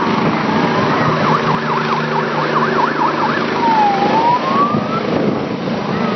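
Helicopter rotor and engine running loud as it lifts off and climbs away overhead. Over it, about a second in, a high warbling tone sweeps rapidly up and down for a couple of seconds, then makes one slower dip and rise.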